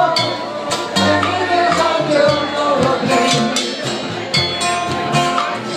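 Live acoustic music: several ukuleles strummed together with voices singing over them and low bass notes underneath.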